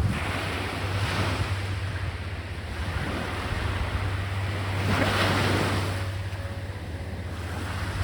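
Sea waves breaking and washing on a beach, with one wave surging loudest about five seconds in, and wind on the microphone adding a low rumble.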